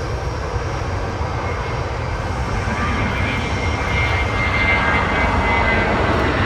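The twin jet engines of an Airbus A320-family airliner at take-off thrust as it lifts off and climbs away. The steady rumble grows louder, and a high fan whine comes in about three seconds in.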